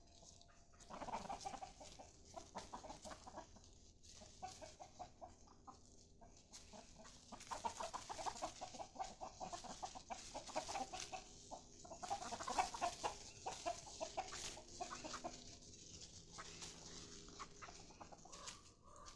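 Chickens clucking: quiet bouts of rapid short clucks, loudest about twelve seconds in.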